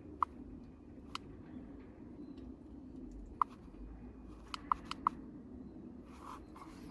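Scattered sharp clicks and light knocks, with a quick run of four a little past the middle, over a low steady hum.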